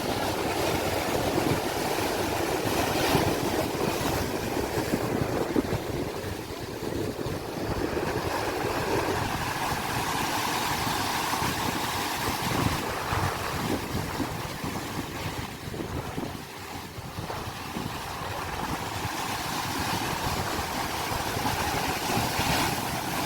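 Sea waves washing with wind on the microphone: a continuous rushing that swells and eases, dipping briefly about six and sixteen seconds in.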